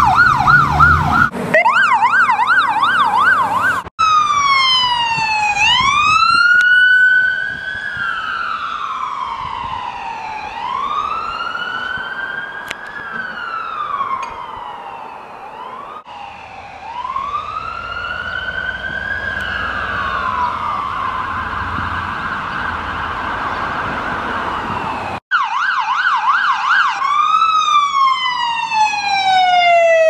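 Ambulance electronic siren, spliced from several recordings with abrupt cuts. It opens on a fast yelp, then gives a slow wail rising and falling every few seconds over road noise, then a quicker warble and the fast yelp again. Near the end come repeated falling sweeps.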